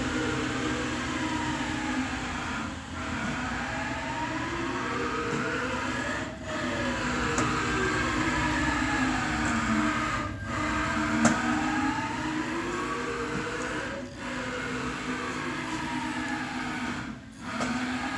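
Haas CNC mill's servo axis drive running, a motor whine that glides up and down in pitch as the axis speeds up, slows and reverses, with a short dip at each reversal roughly every 3.5 to 4 seconds. The axis is being driven by a repaired Haas 30 A brushless servo amplifier under test.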